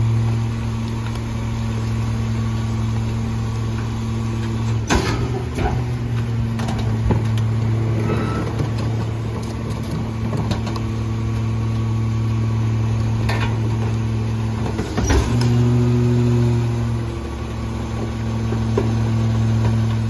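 McNeilus rear-loader garbage truck running steadily while its hydraulic packer blade compacts a load out of the hopper, with sharp clunks, the loudest about five and fifteen seconds in.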